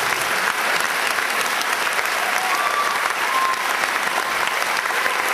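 Audience applauding, with steady, dense clapping throughout.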